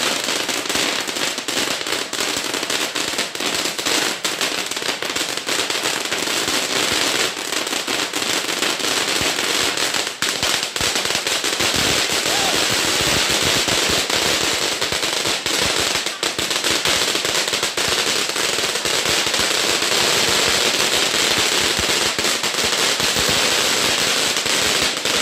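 Ground fountain firework spraying sparks: a loud, dense crackle of many small pops over a steady hiss.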